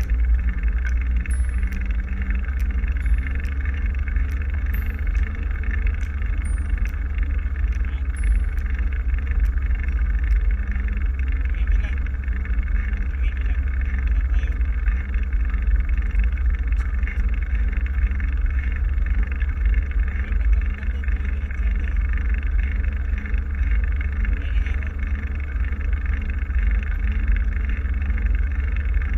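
Steady wind rumble on the microphone during a bicycle ride, with a constant hiss.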